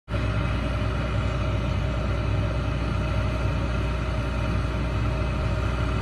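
John Deere 9760 combine running steadily, its diesel engine giving a low, even drone.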